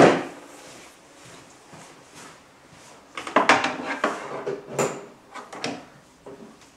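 Scattered light clicks, taps and knocks of handling as an Ethernet cable is fitted and the TV cabinet's drawer and contents are moved: one sharp click at the very start, then a busy cluster of them from about three seconds in.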